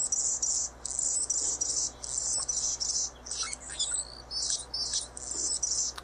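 Anna's hummingbird singing: a series of high-pitched, scratchy phrases repeated with brief gaps.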